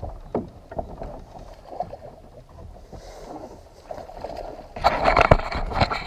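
Scattered knocks and bumps on an aluminum fishing boat, then about five seconds in a loud burst of splashing and clattering as a hooked bass thrashes at the surface beside the boat while it is being netted.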